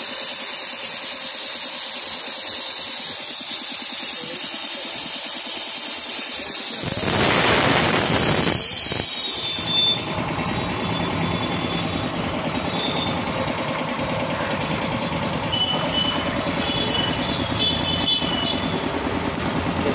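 Belt-driven double-piston air compressor with a 1 hp single-phase motor running. At first it is mostly a steady high hiss. About seven seconds in, a heavier, lower running sound sets in, louder for a moment, and carries on steadily.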